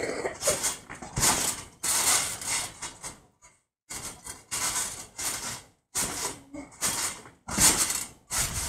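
Trampoline being bounced on: the springs and mat creak and rattle in repeated short bursts, about one to two a second, with a few abrupt breaks.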